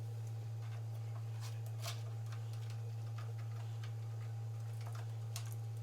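Scattered light metallic clicks and taps of hand tools on a Briggs & Stratton engine as the new carburetor's mounting bolts are worked in. They come at irregular intervals over a steady low hum.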